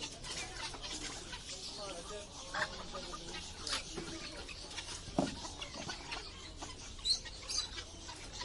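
Animal market ambience: chickens clucking amid scattered short clicks and knocks.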